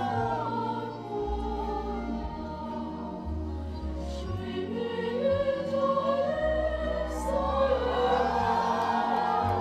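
A choir singing slow, long-held chords in several parts over deep low notes that change about every second, growing louder in the second half.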